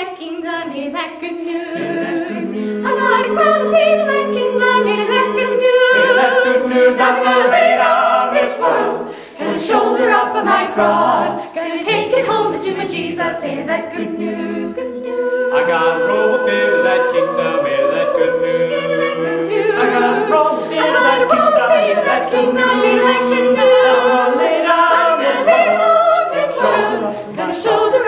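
Mixed choir of young girls' and boys' voices singing a cappella in harmony, with held chords in phrases and short breaks between them.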